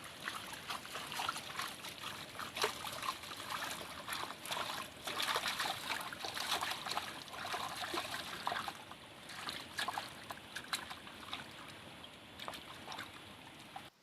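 Water trickling and splashing in irregular small spatters, cutting off abruptly at the end.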